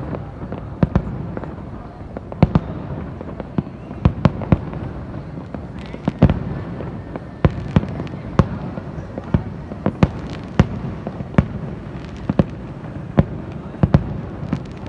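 Fireworks going off: a run of sharp, irregular bangs, one to three a second, over a continuous low rumble of more distant bursts.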